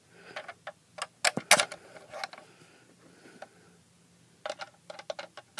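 Scattered sharp clicks and taps of hard plastic as a screw and screwdriver are fitted into the underside of a Lightning McQueen toy car model. There are a few clicks about a second in and a quicker cluster near the end.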